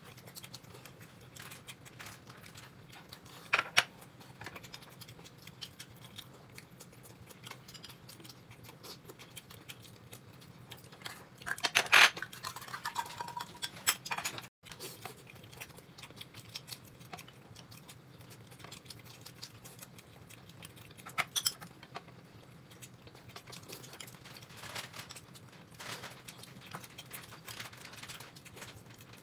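Quiet, scattered clinks and knocks of tableware against dishes, as of people eating at a table, with a louder clatter about twelve seconds in.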